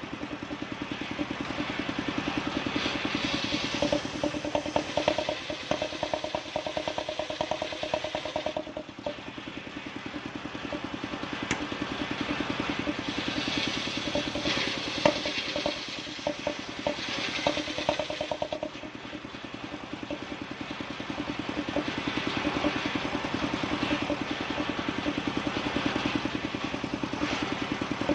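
Engine-driven wood saw running continuously as it cuts bayur timber, the engine's steady pulse swelling under load and easing off briefly twice.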